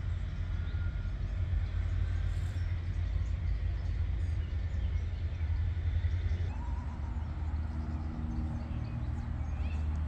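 Outdoor park ambience: a steady low rumble with faint chirps of songbirds over it. A low droning hum joins about two-thirds of the way in.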